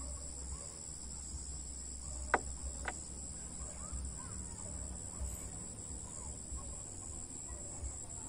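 Steady high-pitched chorus of crickets, with a few faint bird chirps. Two sharp knocks a little over two seconds in, about half a second apart.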